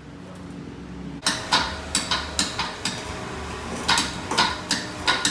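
An electric ceiling hoist lifting a Jeep Wrangler hardtop. About a second in, a run of sharp, irregular clicks and knocks starts, two or three a second, over a steady low hum.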